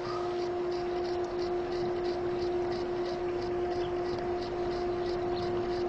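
A steady hum, with a faint high chirp repeating about four times a second.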